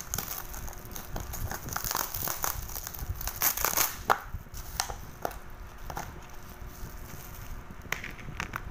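Clear plastic wrapping crinkling and crackling as it is pulled off a black plastic takeaway food tray. The crinkling is dense for the first half, then thins to occasional clicks and taps of plastic.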